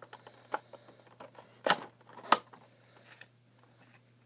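Cardboard figure box being opened by hand: a run of small clicks and taps of the packaging, with two sharper snaps a little over half a second apart near the middle.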